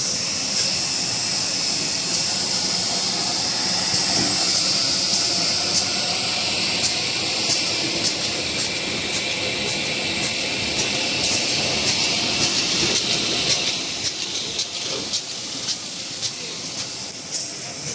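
Toilet paper converting line machinery running: a steady mechanical hiss with sharp regular clicks about twice a second. It gets a little quieter near the end.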